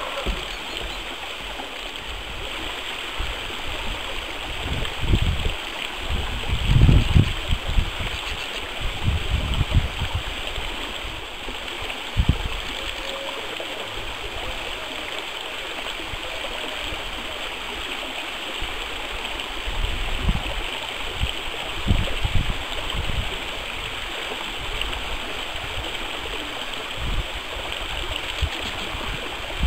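Shallow stream flowing over stones between ice and snow banks: a steady rushing, gurgling water sound. Short low thumps on the microphone come and go several times.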